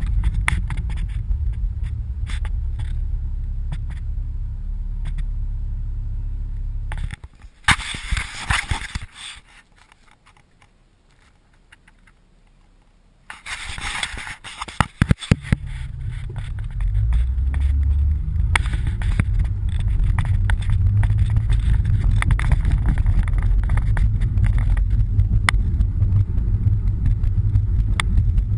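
Road and engine noise inside a moving car, a steady low rumble. About seven seconds in it is broken by rubbing and knocking from the camera being handled, with a quieter stretch in between, and from about seventeen seconds on the rumble returns louder.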